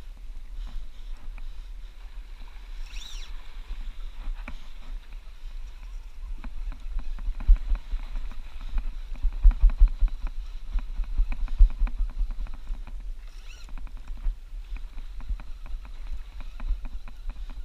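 Water slapping against a small open boat's hull at sea, a low rumble with heavy thuds that crowd together and grow loudest in the middle. Two brief high squeaks break in, about three seconds in and again some ten seconds later.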